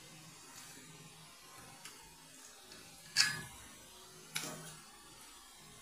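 Cutlery clinking twice against a stainless steel plate while a slice of ham is cut, the first clink about three seconds in and the second a little over a second later, with a brief metallic ring.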